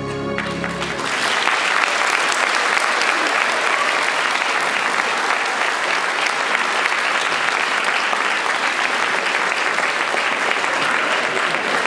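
Audience applauding steadily and loudly as the closing music dies away about a second in.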